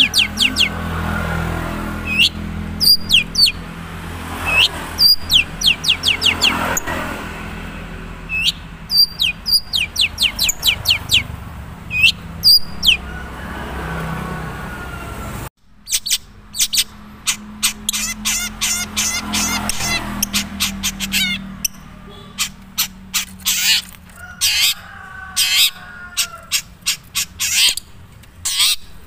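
Long-tailed shrike (cendet, Madura type) singing its own natural song: quick runs of sharp, high chirps and short hooked notes, repeated in bursts, with little learned mimicry in it yet.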